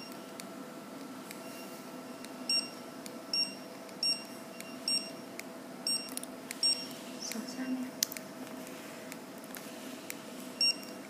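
Handheld 1D laser Bluetooth barcode scanner beeping on each successful read: a run of six short high beeps, less than a second apart, starting about two and a half seconds in, then one more near the end.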